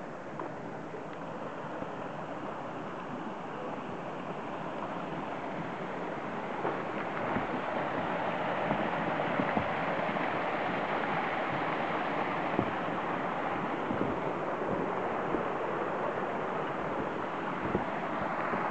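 Hot spring water rushing steadily over a small wooden weir, swelling louder partway through and then holding, with a few faint knocks.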